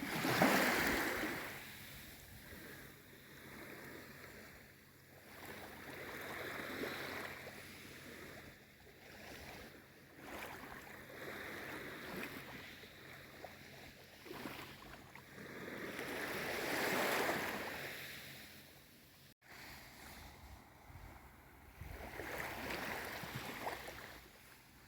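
Gentle sea waves washing in and drawing back, swelling and fading every few seconds, the strongest wash about half a second in and another about two-thirds of the way through. A very brief dropout comes shortly after that.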